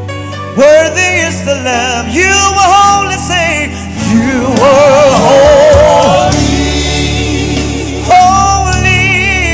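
Gospel worship music: a singer with vibrato, a choir joining in, over a steady keyboard-and-bass backing.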